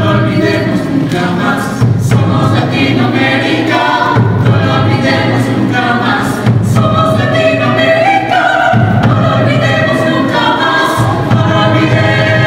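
Mixed choir of men's and women's voices singing in several-part harmony, long held chords over low bass notes, the chords changing every couple of seconds.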